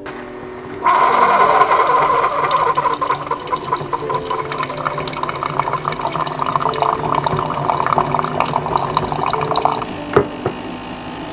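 Keurig single-cup coffee maker brewing: its pump runs and coffee streams into a mug, starting about a second in and stopping near the end. A short knock follows just after it stops.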